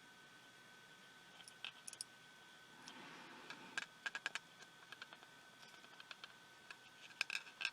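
Small sharp clicks and taps of hands handling the opened pico projector's parts and cables while hooking it up, in short clusters about two seconds in, around four seconds in and near the end.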